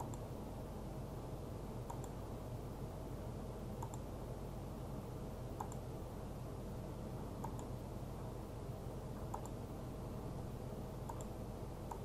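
Computer mouse button clicked about every two seconds, each click a close pair of ticks, over a steady low hum of room or computer noise.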